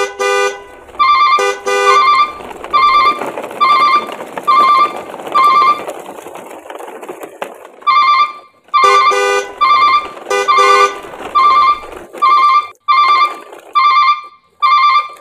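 Electronic music: a bright beeping note repeats about once a second over a faint hum. A few lower chord hits come near the start and again about nine seconds in, and the beeping stops for about two seconds in the middle.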